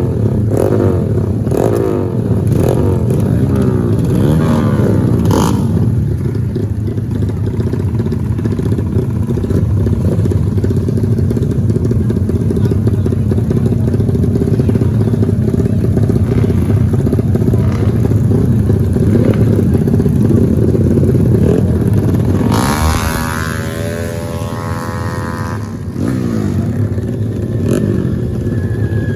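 Racing motorcycle engines revving hard, their pitch rising and falling repeatedly as the bikes accelerate and shift. About 23 seconds in, one engine climbs sharply in pitch, louder and higher than the rest.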